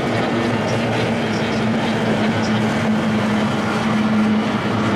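Kyotei racing boats' two-stroke outboard motors running at full speed around the course, a steady, continuous engine drone with a constant low tone.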